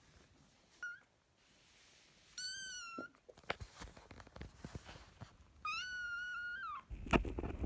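Young kitten mewing: a brief squeak about a second in, then two high mews, the second longer and falling at its end, as it wants to climb out of its cat bed but is afraid of the height. Scratchy rustling and clicks come in near the end.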